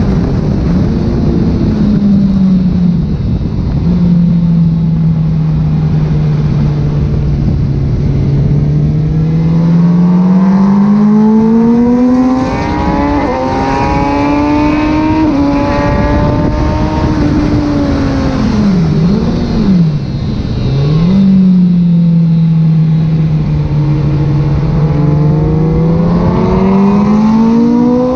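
Kawasaki ZX636 inline-four engine, freshly rebuilt and being run in, driving the bike around a track. The revs climb and fall as it works through the gears, with a pair of quick drops and rises a little past halfway, over steady wind noise.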